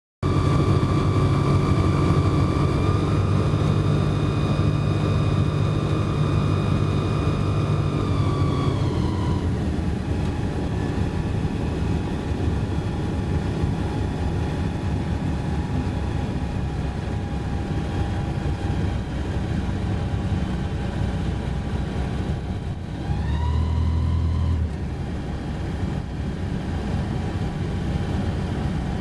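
Light aircraft's engine droning steadily in flight, heard from inside the cockpit. About eight seconds in it is throttled back and its pitch drops for the approach to landing. Around twenty-three seconds in a brief burst of power rises and falls back.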